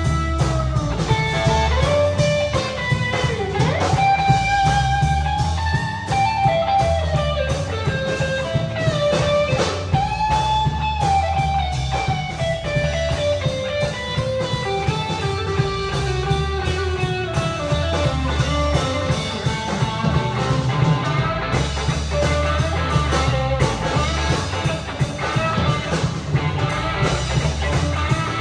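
Instrumental music: a lead guitar playing a slow melody with bending, gliding notes over bass and drums.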